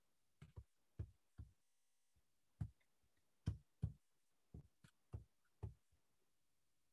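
Clicks and knocks from someone working at a computer: about a dozen short, irregular clicks, each with a dull thump, some louder than others, over a near-silent background.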